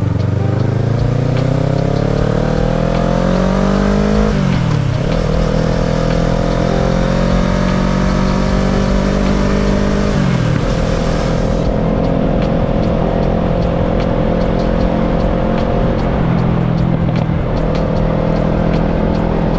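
Kawasaki ER-6n's parallel-twin engine accelerating through the gears. The revs climb for about four seconds and drop at an upshift, then climb again and drop at a second upshift about ten seconds in. After that the engine holds steady at cruising speed, with a brief dip near the end.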